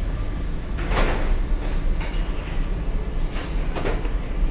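Steady low rumble of a commercial kitchen's extraction ventilation, with a few short scrapes and rustles of bowls and a cling film box being handled on a stainless steel counter.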